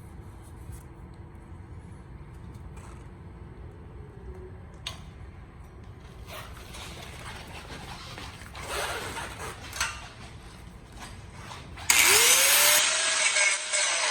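Light scraping and handling noise, then near the end a power cutting tool starts up loud and cuts into the stock steel exhaust pipe, its pitch dipping and recovering as it bites.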